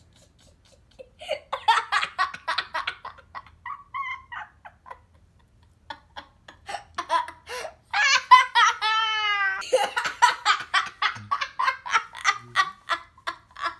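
A young boy laughing in fits of giggles: bursts of rapid laughter, a short pause about five seconds in, and a long, high, wavering squeal of laughter about eight seconds in.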